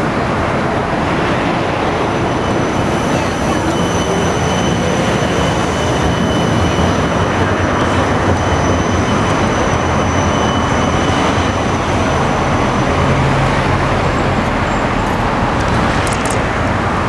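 Electric tram running, a steady rumble and rush of wheels and motors, with a thin steady high whine from about two seconds in until about twelve seconds.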